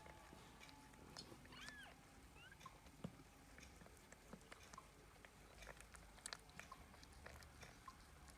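Very quiet sounds of a cat in a birthing box: scattered small clicks and rustles, with a couple of faint high squeaks a little under two seconds in.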